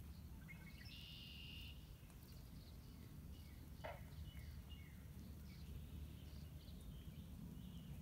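Faint songbirds calling: a brief high trill about a second in, then scattered short chirps, with one sharper note near the middle. A low steady rumble runs underneath.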